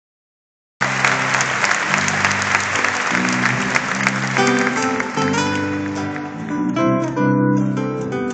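Applause breaking out suddenly about a second in over live acoustic guitar, dying away about four seconds in and leaving the guitar playing a song's introduction.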